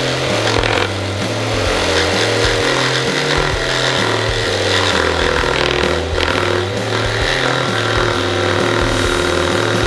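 Background music with a repeating bass line that steps between notes about twice a second.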